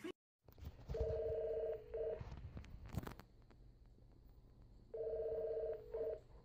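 Electronic telephone ringing: a warbling two-tone trill that sounds twice, about four seconds apart, each ring a long trill followed by a short one. A single sharp click falls between the two rings.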